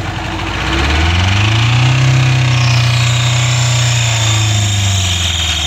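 Car engine revved up hard and held at high revs, its pitch easing slightly near the end. It is an engine being deliberately run to destruction with water in it, still running after seeming to seize.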